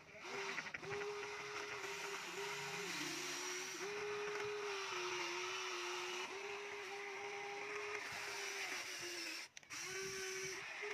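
Remote-controlled toy excavator's electric motors whining steadily as the arm and bucket move. The pitch sags a few times under load, and the motors stop for a moment about nine and a half seconds in, then start again.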